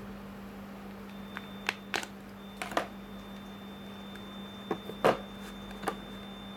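A handful of short, sharp plastic clicks and snaps, about six spread irregularly with the loudest about five seconds in, from handling the Nokia 5230 phone and prising open its back cover to change the SIM card. Under them run a steady low hum and a faint high whine that starts about a second in.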